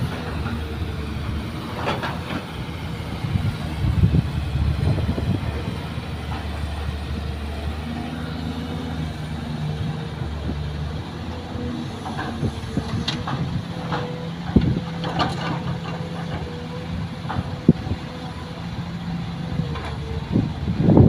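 Diesel engines of a Kobelco hydraulic excavator and dump trucks running, with a steady low rumble and a thin steady whine. In the second half, several sharp knocks and clunks come as the excavator digs and drops soil into the truck's steel bed.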